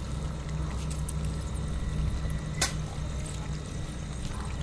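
Chicken-and-onion masala cooking in a clay kadhai over a wood fire: a steady sizzle, with one sharp click about two and a half seconds in as the steel spatula knocks against the pot.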